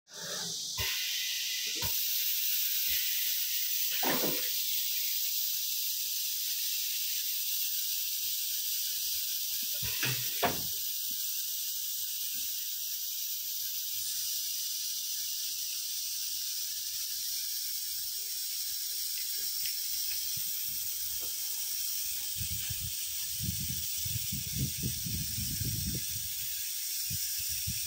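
Steady high hiss of compressed air from a CNC router's pneumatic auto-loader, its vacuum suction cups lifting a sheet of board, with a few knocks and a low rumble near the end.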